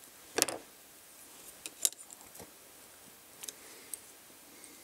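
Scattered sharp metallic clicks and light taps of small pliers and electronic parts being handled, the loudest about half a second in and another near two seconds, then fainter ticks: pliers working a diode's thick wire leads.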